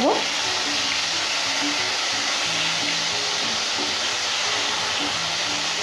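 Eggplant wedges frying in hot mustard oil in a pan, giving a steady, even sizzle.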